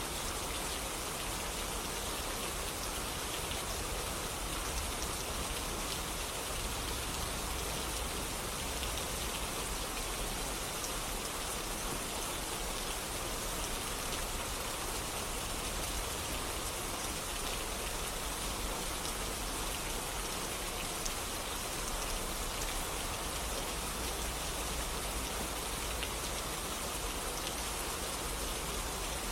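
Steady rain falling on a surface, an even hiss with many small scattered drop ticks.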